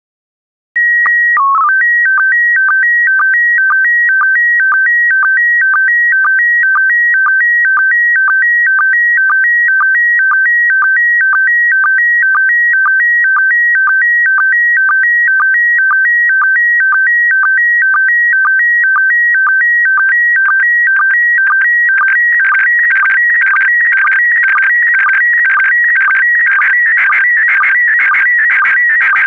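Slow-scan television (SSTV) picture signal in PD120 mode. It starts about a second in with a steady calibration header tone and a brief lower blip, then runs as a high-pitched two-tone warble that repeats about twice a second, one picture line at a time. About two-thirds of the way through it turns into a denser, scratchier warble as the detailed part of the image is sent.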